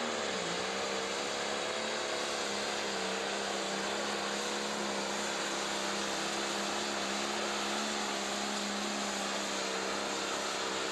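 Pro stock pulling tractor's turbocharged diesel engine running at full throttle under the load of the sled. Its pitch sags briefly about half a second in, then holds steady.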